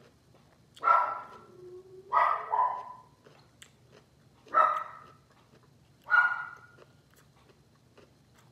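A dog barking: five short barks spread over the seconds, the first trailing off lower.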